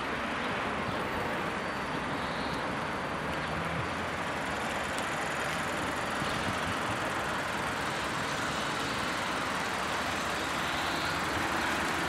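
Steady outdoor background noise: an even rush with no distinct events.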